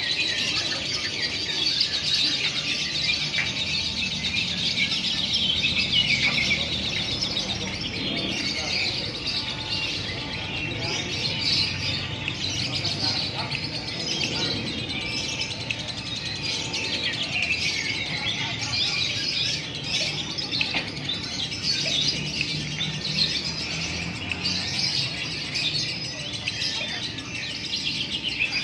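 Lovebird singing a long, unbroken run of rapid high chattering.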